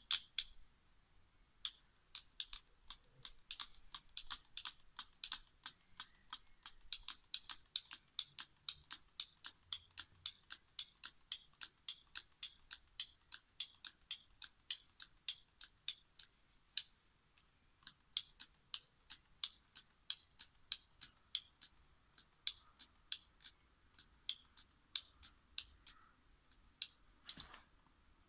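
Hand ratchet cable tool clicking stroke by stroke as it works around a thick black power cable: a steady run of sharp clicks, two or three a second, with one duller knock near the end.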